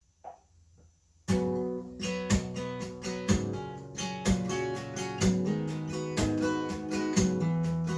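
Acoustic guitar strumming the song's intro in a steady rhythm, coming in about a second in after near quiet.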